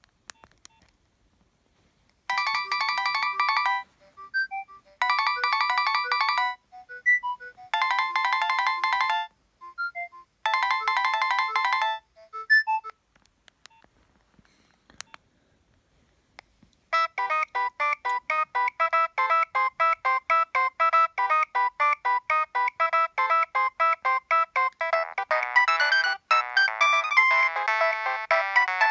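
Nokia 7250i mobile phone playing its preloaded ringtones. One tune plays as four short repeated phrases with brief gaps, then after a pause a second tune starts as a quick run of notes that grows busier near the end.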